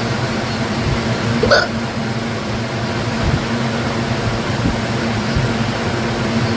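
A single hiccup with a short upward squeak, about a second and a half in, over a steady background hum.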